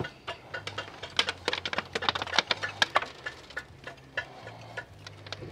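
Solar string cables being pulled and handled among loft insulation: a quick, irregular run of rustling clicks and ticks, densest in the first three seconds or so, then thinning out.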